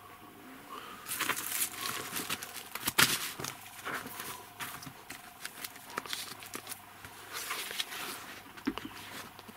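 Rustling, crackling and scattered knocks from a camera being handled and moved about, with one sharp knock about three seconds in.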